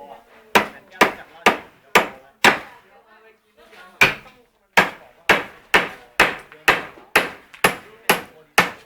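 Hammer blows struck in a steady rhythm, about two a second, with a short pause about three seconds in.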